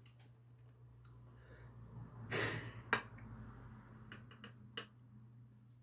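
Quiet eating sounds: one short breath, then a few light clicks of a metal spoon against a ceramic bowl as whipped-cream cake is scooped, over a steady low hum.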